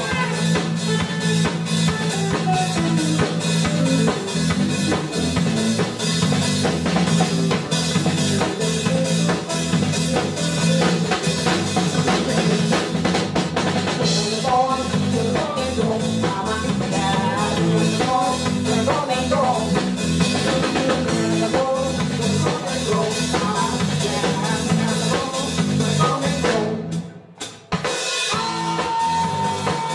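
Live band music driven by a busy drum-kit groove, with snare, rimshots and bass drum to the fore under bass and other instruments. Near the end the band cuts out for about a second, then comes back in with a held note.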